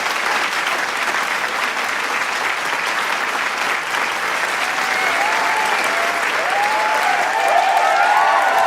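Large crowd applauding, a dense steady clapping, with cheers and whoops from individual voices growing over the last few seconds.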